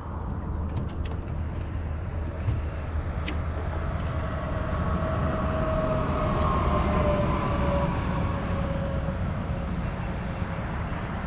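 An engine passing by: a steady low rumble that swells to its loudest about two-thirds of the way through, with a faint hum sinking slightly in pitch, and a few sharp clicks.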